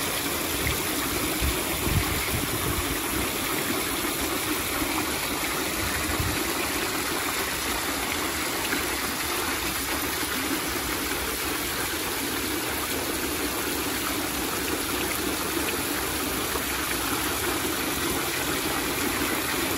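Many small fountain jets falling into a pond, a steady spatter and splash of water drops on the water's surface.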